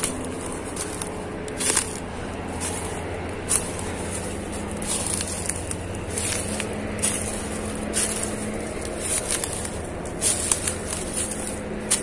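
Footsteps crunching through dry leaf litter and brush, with irregular sharp crackles and snaps of twigs underfoot every second or two, over a steady low hum.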